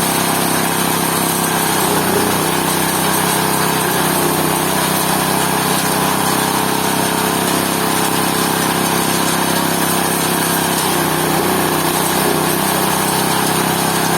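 GT-14S pulping machine running steadily while grinding fruit into pulp, a loud, even machine hum with a whirring rush. Its pitch sags briefly about two seconds in and again later as the load changes.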